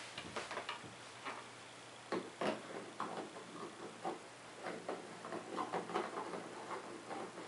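A 60-watt Sylvania incandescent bulb being screwed by hand into a ceiling-light socket: a run of small irregular clicks and scrapes of the metal base turning in the threads.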